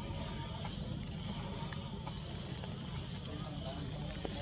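Outdoor ambience dominated by a steady, high insect drone, with a low rumble underneath.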